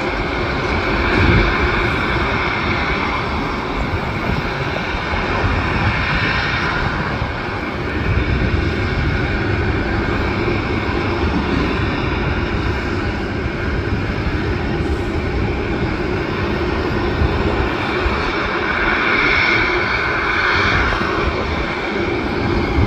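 Boeing 737 jet engines running at low taxi power: a steady whine over a rumbling roar. Gusty wind buffets the microphone.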